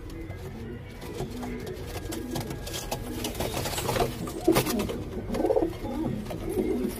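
Gola domestic pigeons cooing over one another in a loft, low repeated coos throughout. Quick sharp wing flaps between three and five seconds in are the loudest sounds.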